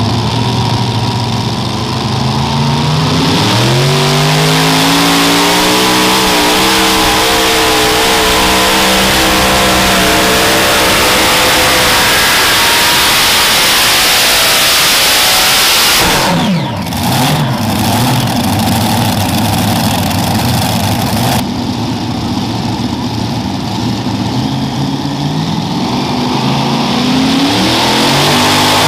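Multi-engine, supercharged, alcohol-burning super modified pulling tractor idling, then opened up about three seconds in: the engine note climbs steeply and runs hard at high revs until it drops away sharply at about sixteen seconds as the pull ends. After an abrupt change, a second super modified tractor idles and starts revving up near the end.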